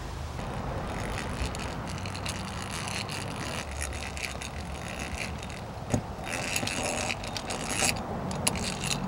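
Power drill with a twist bit boring into a white plastic (uPVC) door frame: the motor running and the bit scraping through the plastic, easing off briefly about five seconds in, with a sharp click just after.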